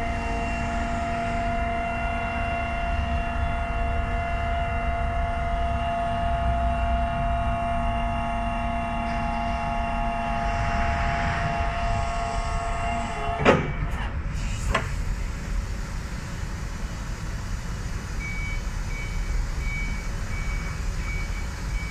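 8-ton electric forklift's hydraulic pump motor whining steadily as the mast lifts an 8-ton test load, cutting off about 13 seconds in with a couple of clunks. Near the end a warning beeper sounds in short repeated beeps.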